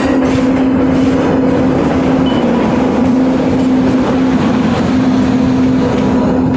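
Two trains running side by side at close quarters: the steady, loud running noise of wheels on rail, with a constant hum from the electric locomotive passing alongside.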